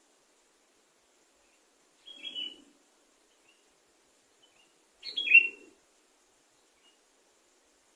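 Sooty-headed bulbul (kutilang) giving two short, loud call phrases about three seconds apart, the second louder, with a few faint chirps in between.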